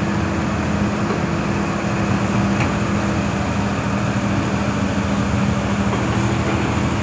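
Caterpillar 320D excavator's diesel engine running steadily as it works, a loud, even drone.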